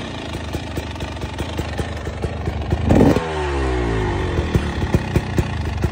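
Dirt bike engine running with rapid popping from the exhaust, blipped up in revs once about three seconds in.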